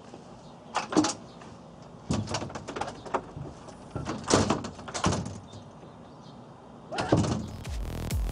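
Knocks and rattles at a glass storm door, in four short clusters spread over several seconds. Music starts near the end.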